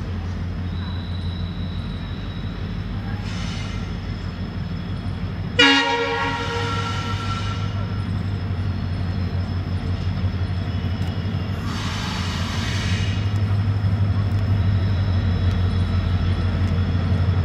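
WDG-4 diesel-electric locomotive (EMD 16-cylinder two-stroke engine) approaching with a steady low engine drone that grows slowly louder. A loud horn blast starts suddenly about six seconds in and lasts about two seconds, with two fainter, shorter bursts of higher sound before and after it.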